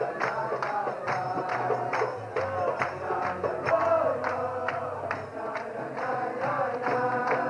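A crowd of men singing a tune together in unison, with hand claps keeping a steady beat about two and a half times a second.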